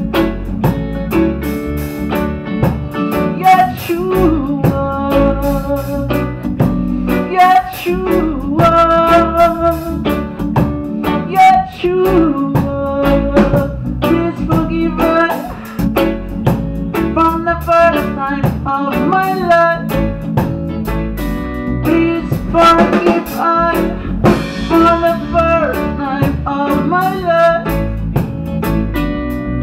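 A live band plays an instrumental passage with no sung words: an electric guitar leads with bending melodic lines over keyboard and a drum kit.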